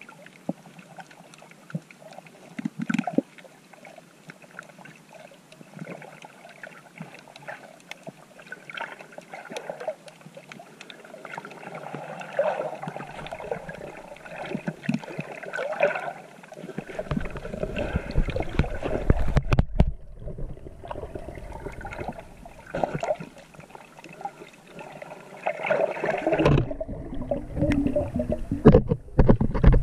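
Water sloshing and gurgling around a swimmer's waterproof GoPro housing, with scattered faint crackles. A heavier low rumbling of churned water sets in just past halfway, drops away briefly, and returns near the end.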